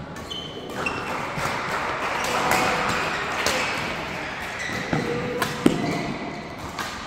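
Badminton doubles rally: sharp racket hits on the shuttlecock and short squeaks of court shoes, echoing in a large hall.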